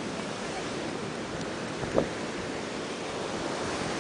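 Ocean surf washing steadily onto a beach, with a brief bump about halfway through.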